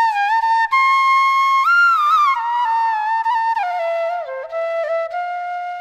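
Intro music: a solo flute melody with sliding, ornamented notes, settling onto a long held low note near the end.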